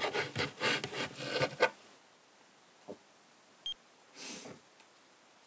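Bedding and pillows rustling as someone stirs in bed, a quick run of rustles that stops about two seconds in. Later there is one more soft rustle and a short high electronic beep.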